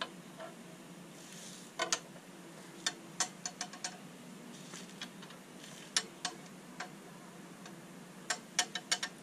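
Sharp metal clicks and taps in irregular clusters, from metal parts and hand tools being handled while the cross-slide screw is fitted into a DIY lathe's cross slide.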